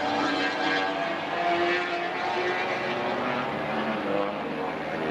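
Aircraft propellers and engine running steadily: a constant hum of several pitched tones that drift slightly up and down over a rushing noise.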